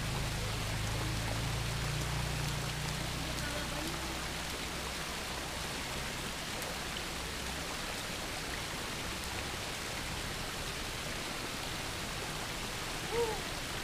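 Shallow river water babbling steadily, an even rushing noise with no rhythm. A low rumble underneath fades away about six seconds in.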